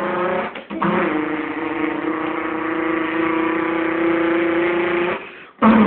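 A person's voice imitating a Volkswagen Beetle engine running: a steady, buzzing engine drone held for about four seconds, breaking off briefly about half a second in and again near the end.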